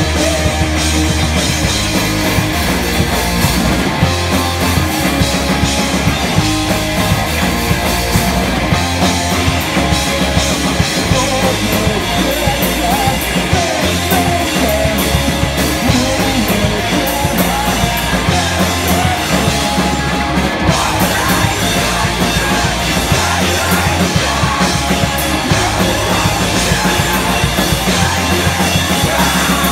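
Live punk rock band playing loud and steady: two electric guitars, a bass guitar and a drum kit.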